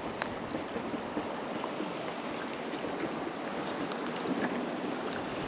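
Steady rushing water noise with a few faint ticks.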